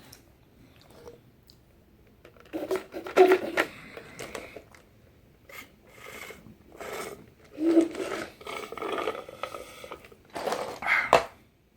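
A man eating: chewing and mouth noises coming in several irregular bursts with quieter gaps between them.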